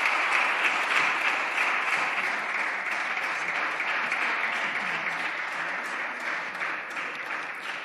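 Deputies applauding: a dense, steady patter of hand claps that slowly dies away near the end.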